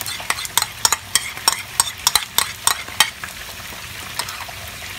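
A metal spoon clinking and scraping against a glass bowl, scooping out a thick mayonnaise-ketchup sauce, with the pan of mortadella and capsicum sizzling on medium heat beneath. The clicks come thick and irregular at first, then thin out after about three seconds.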